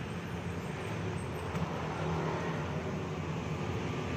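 Gas welding torch flame burning steadily while a steel exhaust muffler pipe is welded: a constant hiss with a low rumble underneath.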